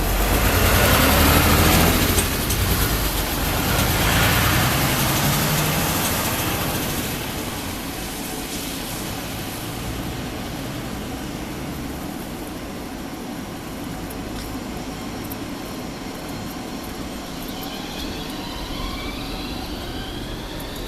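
Toyama Light Rail TLR0600 tram pulling away, its traction motors whining and rising in pitch as it gathers speed over steady rail noise. The sound is loudest for the first few seconds, then eases to a steadier running rumble. Near the end, a higher whine rises in pitch again.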